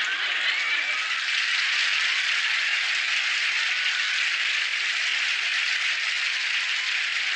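Studio audience applause, a steady dense clatter of clapping that holds an even level throughout.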